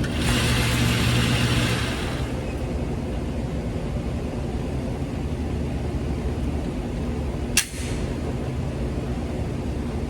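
A single sharp, brief shot from a 9mm Glock 19 Gen 5 pistol about three-quarters of the way through, over a steady low hum. A rush of hiss fills the first two seconds.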